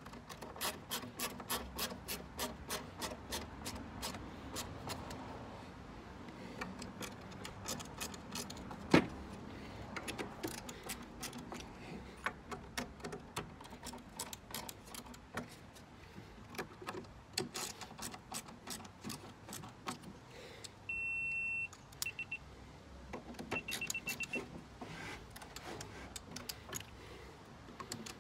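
Hand screwdriver driving screws into the plywood slats of a wooden record crate, clicking in runs of even ticks (about three or four a second at first), with one sharp knock about a third of the way in. A steady high electronic beep sounds about three-quarters through, followed by a few short chirps.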